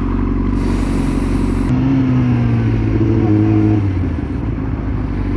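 Yamaha R6 sportbike's inline-four engine heard from the rider's seat, pulling harder with its pitch climbing from about two seconds in, then falling back about four seconds in.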